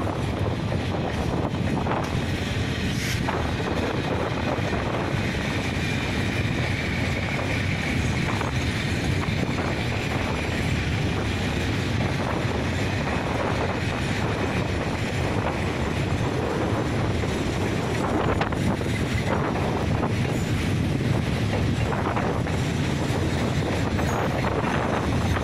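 Freight train of covered hopper wagons rolling out of a station: a steady rumble of steel wheels on rail, with occasional faint clicks over the rail joints.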